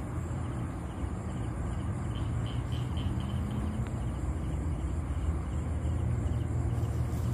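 Insects chirping at night in a quick, even, pulsing series over a constant low rumble.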